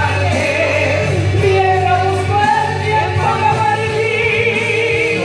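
A woman singing a Spanish-language pop song into a microphone over loud backing music, her voice amplified.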